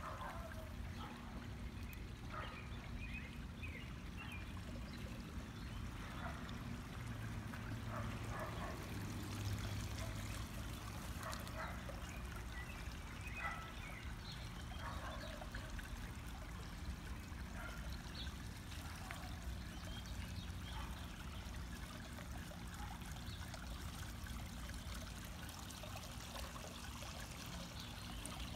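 Garden fountain trickling and splashing, with many small irregular splashes over a steady low rumble.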